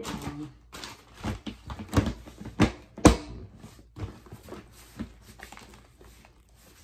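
Black plastic lid being pushed down and snapped onto an overfull clear plastic storage tote: a run of sharp plastic knocks and clicks, the loudest about two to three seconds in, then lighter taps.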